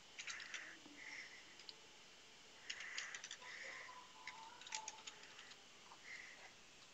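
Faint computer keyboard typing: quick keystroke clicks in three short runs, about a second in, around three seconds in and near five seconds in.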